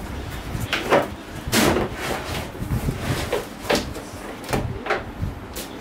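Cardboard box being opened and handled, with the packed plastic table sliding against it: a quick run of short cardboard scrapes and rustles, the longest about a second and a half in.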